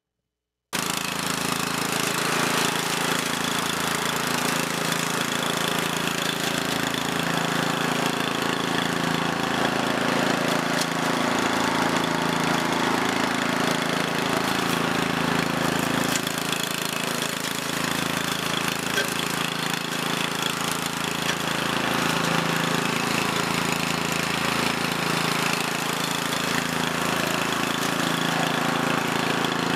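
Walk-behind brush hog's engine running steadily under load as it mows through tall grass and weeds. The sound cuts in under a second in.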